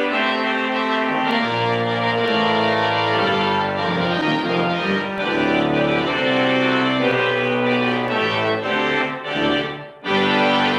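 Church organ playing the closing voluntary: sustained chords moving over a changing bass line. Near the end the sound briefly falls away, then a full chord comes back in.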